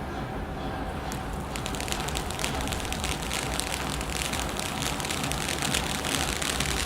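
Gold crackling ground fountain firework spraying, a dense hiss of rapid crackles that sets in about a second and a half in and keeps going, over a steady low rumble.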